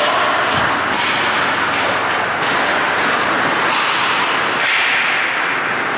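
Ice hockey play heard from rinkside: skate blades scraping and carving the ice, with a handful of sharp cracks of sticks and puck. A longer scraping hiss comes about five seconds in.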